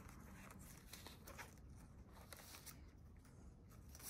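Near silence, with faint soft ticks and rustles of a thin cord being drawn off a kraft-paper package.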